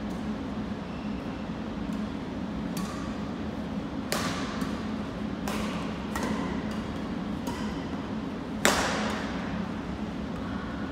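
Badminton rackets striking a shuttlecock in a fast rally: a string of sharp pops, the loudest about nine seconds in and echoing through the gym hall. A steady low hum runs underneath.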